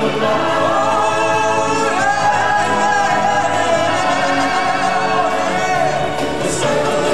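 Stage-show music: a choir of voices and a lead singer on a microphone singing long held notes over a backing track, with no break.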